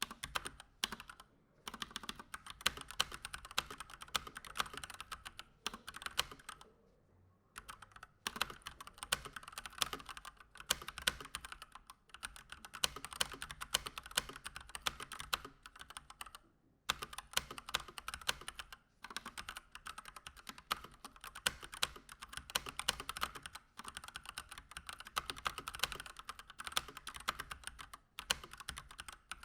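Fast continuous typing on a Keychron C1 mechanical keyboard with stock Gateron Red linear switches, unmodified: dense rapid key clacks, with a short pause about seven seconds in and another past the middle.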